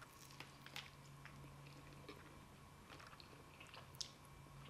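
Faint chewing of a crispy shrimp taco: scattered small crunches and mouth clicks, with a sharper click about four seconds in.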